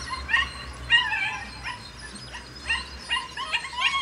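A litter of nine-week-old White Shepherd puppies yipping, many short high calls overlapping and growing busier and louder toward the end.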